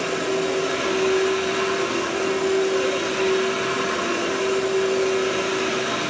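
Workhorse upright vacuum cleaner running steadily as it is pushed over carpet: an even rush of air with one steady humming tone.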